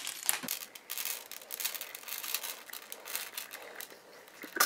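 Small hard beads from a cut-open squishy stress ball pattering and clicking onto a tabletop as they are squeezed out of its rubbery skin: a quiet, irregular run of small ticks.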